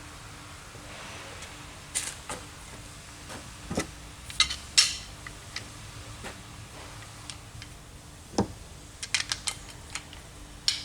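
Irregular metallic clinks, clicks and knocks of hand tools against engine parts, a dozen or so scattered strikes with the loudest clink near the middle and a quick run of four clicks near the end.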